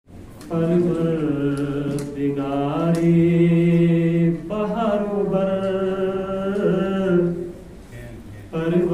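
A man's solo, unaccompanied voice chanting a hamd, a devotional poem in praise of God, in long held notes. It starts about half a second in, breaks briefly twice for breath, and pauses longer near the end before the next line begins.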